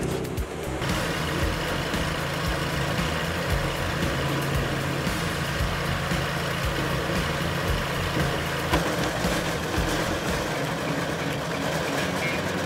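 A large engine running steadily.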